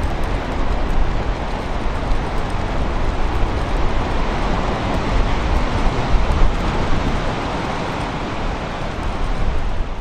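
Strong wind buffeting the microphone: a steady, gusting noise with a heavy low rumble.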